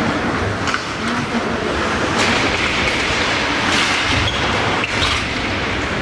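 Ice hockey rink noise: a steady rumble with repeated scraping and knocking from skates, sticks and puck on the ice.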